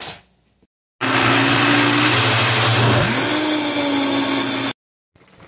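Countertop blender running at high speed, grinding boiled peanuts with onion, garlic, leek, ginger, hot pepper and a little water into a paste. It starts and stops abruptly, and the motor's pitch sags briefly about halfway and then recovers.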